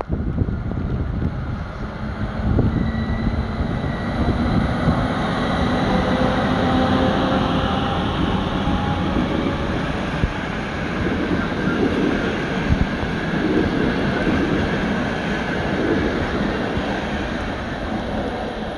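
Two PESA Gama SU160 diesel-electric locomotives pulling a passenger train away from a stop with cold engines, running under power with a steady whine as they pass close. They are followed by the passenger coaches rolling by on the rails.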